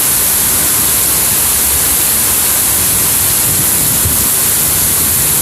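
Heavy rain pouring down in a steady, loud hiss that does not let up.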